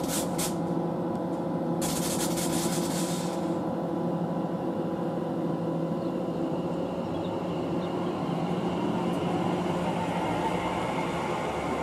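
Greater Anglia Class 720 electric multiple unit at the platform, its electrical equipment giving a steady hum made of several tones. Short bursts of hiss come right at the start and again about two seconds in.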